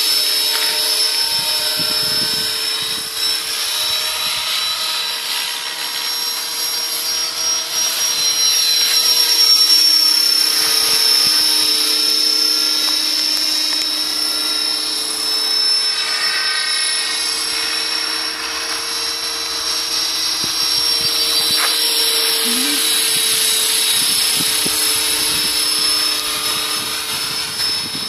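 Radio-controlled scale model Hughes 500 helicopter in flight: a steady high-pitched whine over the rotor sound, growing louder toward a peak about ten seconds in, then easing off.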